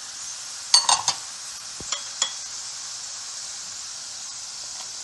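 Shallots, garlic and aromatics sizzling steadily in coconut oil in a frying pan. A quick run of ringing clinks comes about a second in and two lighter clinks about two seconds in, as a small ceramic plate of masala powder is tipped and knocked against the pan.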